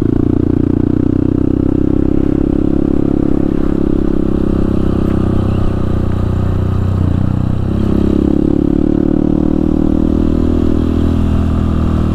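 Motorcycle engine running steadily under way, its pitch dipping briefly about seven seconds in and then picking up again.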